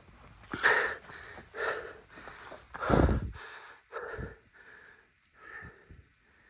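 Heavy breathing of a hiker climbing steps uphill: short, noisy breaths close to the microphone, about one a second, with a stronger, deeper exhale about three seconds in.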